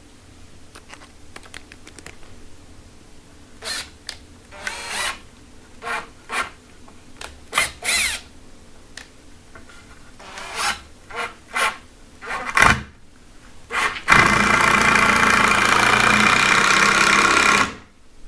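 A series of knocks and clatters of timber and tools being handled, then a power drill running steadily for about three and a half seconds and stopping abruptly near the end, as a concrete screw is fixed into masonry.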